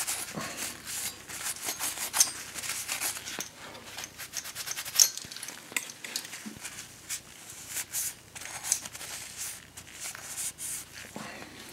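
Paper towel rubbing and scrubbing on the base of an aluminium CPU heatsink, wiping off old thermal compound: an irregular run of short scratchy strokes with small clicks and rustles, one sharper click about five seconds in.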